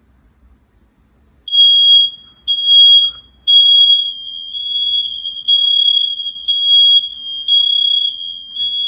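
First Alert SC9120B hardwired smoke and carbon monoxide alarm sounding on test: a loud, high-pitched beep in the smoke-alarm pattern of three short beeps and a pause, starting about a second and a half in and running through two rounds. The other interconnected alarms in the house sound along, so a fainter tone carries on between the beeps, showing the daisy chain is wired correctly.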